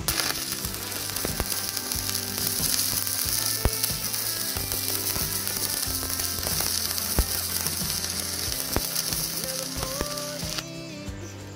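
Stick-welding arc on thin stainless steel tube, crackling and sizzling steadily with scattered pops. It strikes sharply at the start and breaks off about a second before the end.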